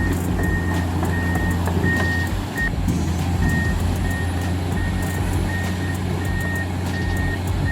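Heavy machine's reversing alarm beeping at a steady pace, one high tone about every two-thirds of a second, with a brief break about three seconds in, over the steady low drone of a diesel engine.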